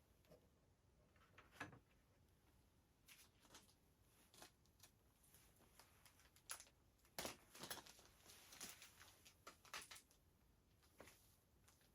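Faint, scattered clicks and short rustles of hands handling small parts and packaging. They come more thickly about seven to ten seconds in.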